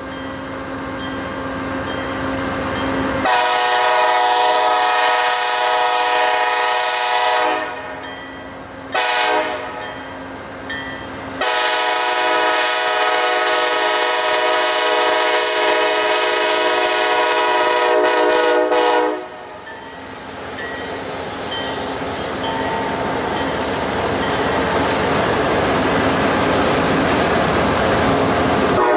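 KCS grey GP-series 'Geep' diesel locomotive approaching with its engine running, then sounding its chord horn: a long blast, a short one, and a long blast held about seven seconds. After the horn the locomotives and covered hopper cars roll past with a steady rumble of wheels on the rails.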